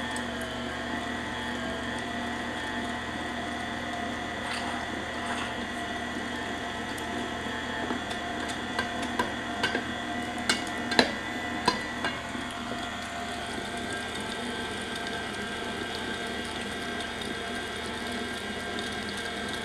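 KitchenAid stand mixer running a meat-grinder attachment, a steady motor whine as rabbit meat is forced through the grinder. A cluster of sharp knocks comes about halfway through.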